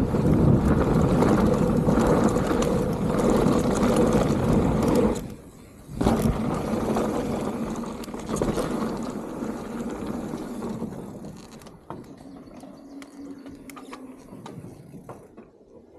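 Mountain bike descending fast, with wind rushing over the camera microphone and tyres rolling on dirt. About five seconds in the noise briefly drops out, then a thud, as the bike leaves the ground off a jump or drop and lands. After that the noise slowly fades as the bike slows, with scattered small clicks.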